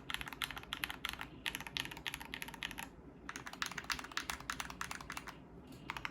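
Typing on a KBD75 v3.1 mechanical keyboard with lubed Gateron CJ linear switches on a brass plate: fast runs of keystrokes in four bursts, broken by short pauses.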